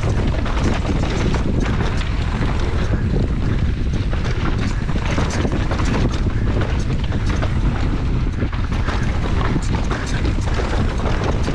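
Wind buffeting the microphone during a fast mountain-bike descent on a dirt trail, over the rush of tyres on dirt, with frequent short rattles and knocks from the bike over bumps.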